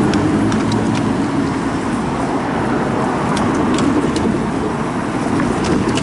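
Road traffic, with cars running past in a steady stream of engine and tyre noise.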